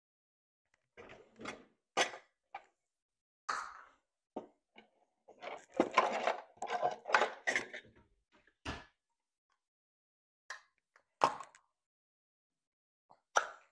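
Kitchen handling noises: a door and things being picked up and set down, heard as scattered knocks and clicks with a busier stretch of clatter around the middle.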